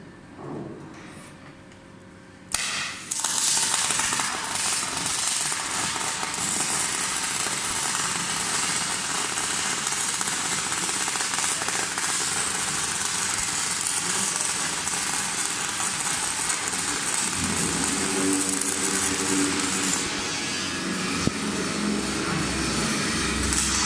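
Loud, harsh crackling noise of metalwork on a steel axle, starting suddenly about two and a half seconds in and running steadily. A low droning hum joins in about two-thirds of the way through.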